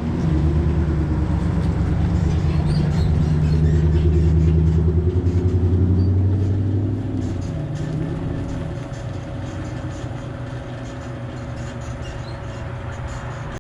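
Vehicle engine and road noise heard from inside the cab: the engine runs steadily under load, then eases off about halfway through and settles to a quieter rumble.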